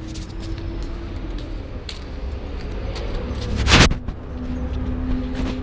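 Chest-worn camera's microphone picking up a steady low rumble of outdoor ambience while the wearer walks, with one loud, brief scrape of handling or clothing noise about three and a half seconds in.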